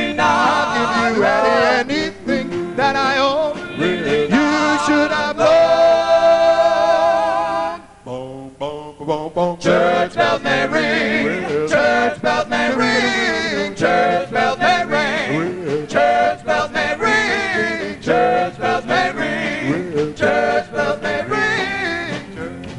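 Doo-wop vocal group singing in close harmony. About six seconds in a voice holds a long note with vibrato, the sound drops briefly, then the harmony singing picks up again.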